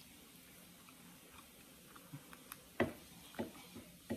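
A person chewing food: a few faint wet mouth clicks and smacks begin about two seconds in, the loudest just before the three-second mark.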